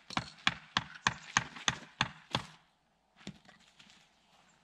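A quick, even run of about eight sharp knocks, roughly three a second, followed by a few fainter ones about three seconds in.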